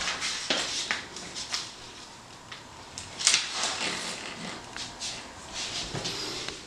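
Paper rustling with a few light clicks and taps as a sheet of paper is hung on a wall with a plastic clothespin.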